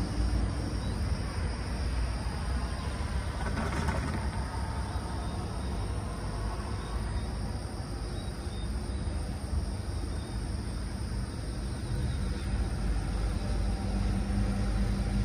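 Steady low engine rumble, with a brief swell of noise about four seconds in.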